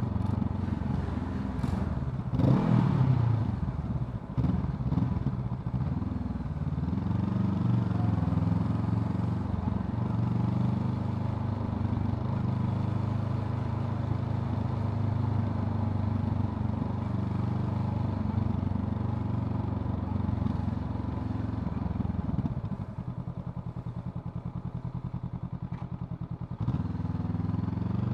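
Honda CL500's 471 cc parallel-twin engine running on the move, revs rising and falling in the first few seconds, then holding steady. About 23 seconds in it drops to a quieter, evenly pulsing beat for a few seconds before picking up again.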